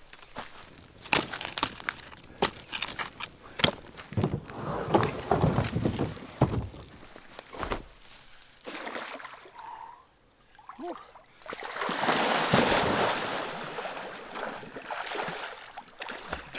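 Lake water splashing and sloshing as a person wades in and swims, with a long burst of heavy splashing about two-thirds of the way through.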